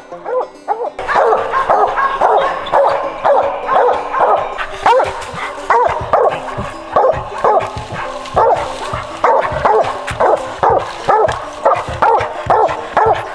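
A treed squirrel dog barking steadily at the tree, about two barks a second, sounding that it has a squirrel located up the tree. The barking begins about a second in.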